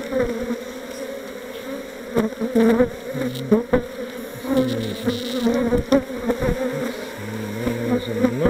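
Honeybee colony buzzing steadily in an opened hive, with a few sharp knocks and clicks from the wooden frames being handled.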